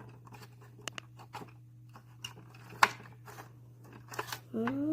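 Light plastic clicks and taps from handling the small parts of a toy pencil case, with one sharper click about three seconds in. Near the end a drawn-out pitched call begins, rising then falling.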